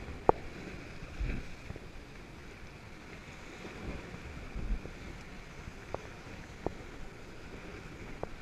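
Kayak paddle strokes in lake water: blades dipping and pulling with splashing and lapping water over a steady wash of water noise. Four sharp clicks stand out, the loudest just after the start and three more in the last few seconds.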